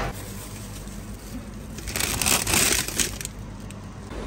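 Plastic frozen-food packaging crinkling as it is handled, loudest in a burst of just over a second about two seconds in.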